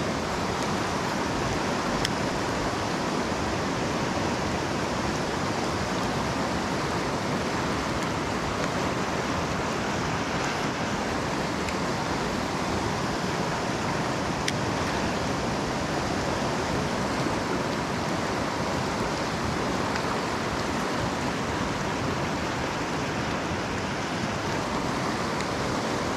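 Fast river water rushing over a shallow cobble riffle, a steady even rush.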